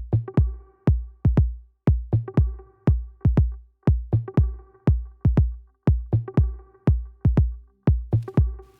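Electronic background music with a steady deep kick-drum beat, about two strokes a second, under sustained synth tones.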